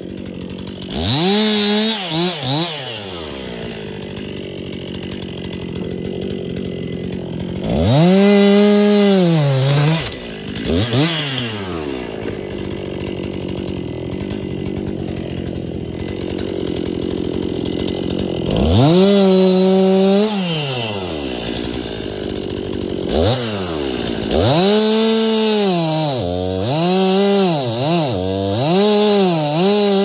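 Stihl MS 261 C-M two-stroke chainsaw cutting through a large downed white pine log. The engine revs up to full throttle in several runs and drops back between them, with a quick series of revs in the last several seconds.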